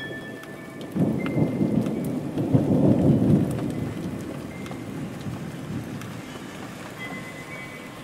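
Steady rain with a roll of thunder that breaks in about a second in, rumbles loudest for a couple of seconds and then slowly fades back into the rain.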